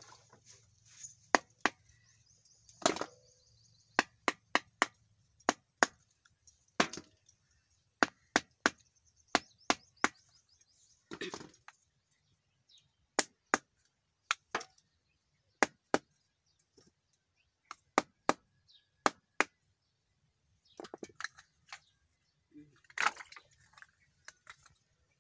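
Coconut-shell moulds being knocked to tap out set palm jaggery (karupatti) cakes: a string of sharp, irregular knocks, about one or two a second, with a short lull about two-thirds through.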